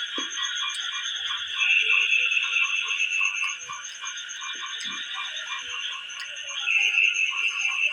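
A chorus of calling frogs: a steady high trill with a rhythmic croak about three times a second, swelling louder about two seconds in and again near the end.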